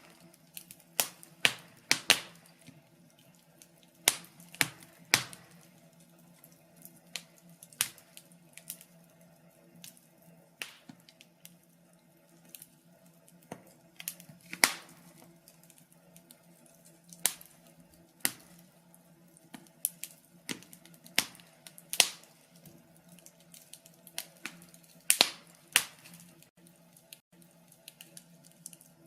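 Wood fire in a fireplace crackling, with irregular sharp pops and snaps from the burning logs, some much louder than others, over a faint steady hum.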